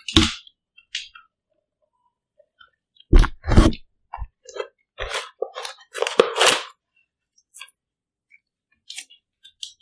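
A large mass of homemade slime being pulled and stretched by hand, giving irregular wet squelches and crackling pops of trapped air. The loudest pops come in clusters about three seconds in and again around six seconds.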